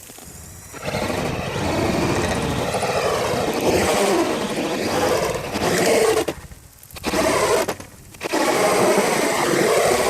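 The 5.5-turn sensorless brushless motor of an RC 4x4 truck running at speed: a whine with a wavering pitch over a rushing noise. It starts about a second in and drops away twice, briefly, about two-thirds through, as the throttle is let off.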